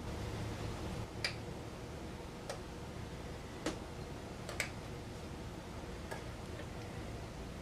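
A handful of light, irregularly spaced clicks and taps over a steady low room hum.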